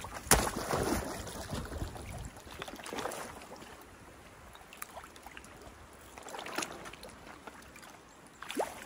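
Water sloshing around wader-clad legs in a shallow icy pond, with broken plates of ice knocking and cracking. A sharp snap comes just after the start, then the sloshing and small clicks fade.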